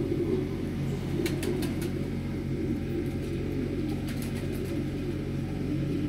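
Domestic pigeons cooing, a low warbling that goes on throughout, with a few light clicks or rustles about a second in and again around four seconds in.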